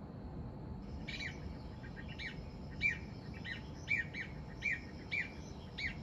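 Masked laughingthrush calling: a run of short, sharp notes at two or three a second, starting about a second in, over a steady low background hiss.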